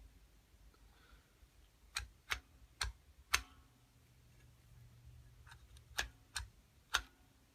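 Stiff spring-loaded elevator push button on a fire-service panel clicking as it is pressed and released: sharp clicks, four in quick succession about two seconds in and four more near the end.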